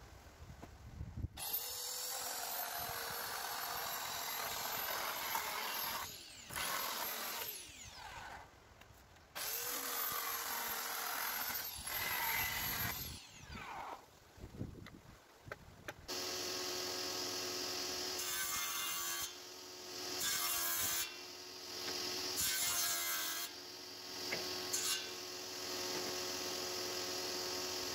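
A handheld power saw cutting old wooden pallets in several runs, its motor whine falling in pitch each time it is let off. About halfway through, a table-mounted circular saw takes over, running steadily with louder stretches as boards are cut on it.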